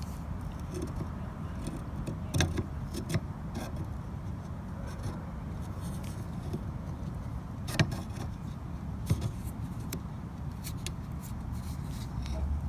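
Scattered sharp clicks and taps of a plastic wiper blade and its clip being handled and fitted onto the wiper arm, the loudest about two and a half seconds and eight seconds in, over a steady low rumble.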